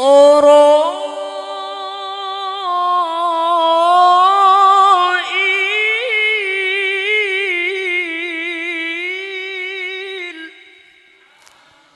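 A man's voice, amplified through a microphone, chanting Qur'an recitation in the melodic tilawah style: one long drawn-out line with wavering, ornamented turns in pitch. It stops about ten and a half seconds in.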